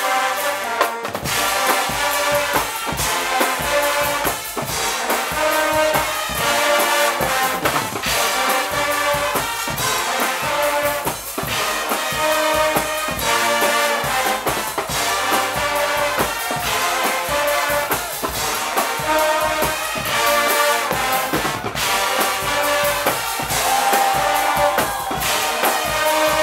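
Guggenmusik band playing: loud brass (trumpets and lower horns) over a marching drum section of bass drum and snare. The drums come in about a second in, setting a steady beat under held brass chords.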